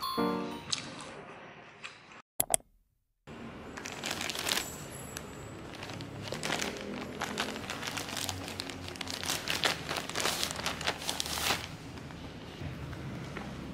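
Plastic mailer bag crinkling as it is handled and opened by hand, a dense run of crackly rustling that dies down near the end.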